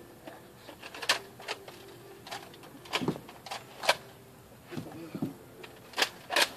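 A string of sharp clicks and knocks, about eight of them at uneven spacing, the loudest about one, four and six seconds in, during a Nerf blaster fight.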